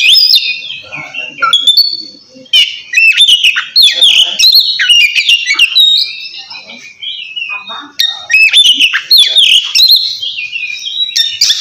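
Oriental magpie-robin (kacer) singing its loud, clear 'ngeplong' song, the call used to challenge rivals: quick, high whistled notes gliding up and down in bursts, with short pauses about two seconds in and again just past the middle.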